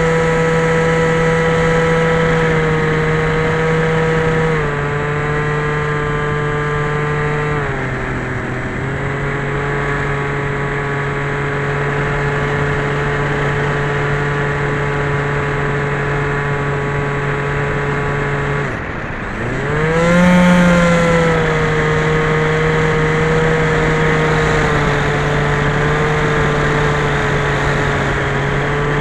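Electric motor and propeller of a Skyhunter FPV model plane running at steady throttle, a constant whine that steps down in pitch a few times. About two-thirds through it dips sharply as the throttle is cut, then swells back up and settles.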